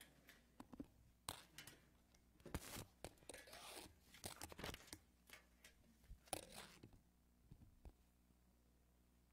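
Faint handling noise from someone setting up at a lectern: rustling and crinkling with scattered clicks, dying away about seven seconds in.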